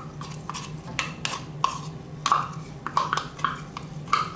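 A kitchen utensil tapping and scraping against a cup or pan to get the last of the tomato sauce out: a string of light, irregular clicks over a steady low hum.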